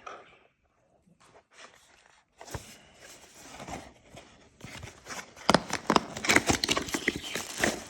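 Packaging of a car phone holder being handled and torn open: crackling, crinkling and tearing that start a couple of seconds in and get louder and denser over the last few seconds.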